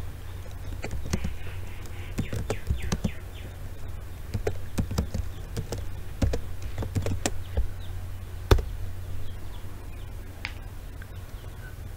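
Computer keyboard keys clicking as a terminal command is typed: irregular taps with one louder click about eight and a half seconds in, over a steady low hum.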